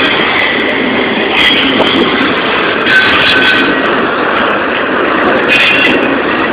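Union Pacific double-stack container freight train rolling past close by: a steady, loud rumble and rattle of well cars on the rails, with a few short high wheel squeals about three seconds in and near the end.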